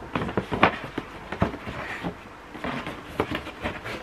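White cardboard box and stiff paper shopping bag being handled: a run of short rustles, taps and knocks of paper and card.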